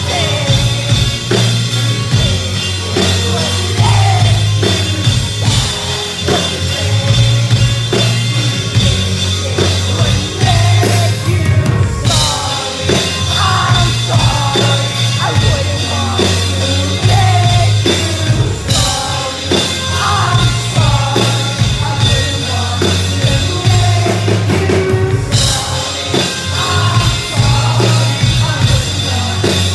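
Live band playing a rock song: a male lead singer over strummed acoustic guitar, drum kit and a heavy low bass.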